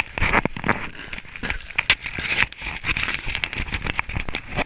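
Snowboard sliding and scraping over packed snow: an uneven run of crackles and sharp scratches, with rumble from wind on the microphone.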